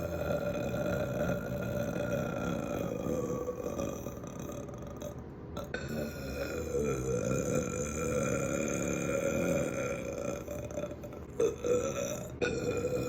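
A woman's long, drawn-out belches, each held for several seconds with a wavering pitch. One ends and another begins about five and a half seconds in, and again near the end.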